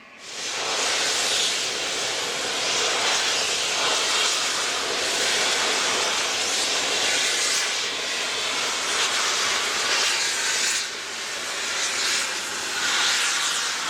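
Southern Railway Schools class 4-4-0 steam locomotive No 926 Repton venting steam in a loud, steady hiss. The hiss starts suddenly and then runs on without a beat, with a brief dip about eleven seconds in.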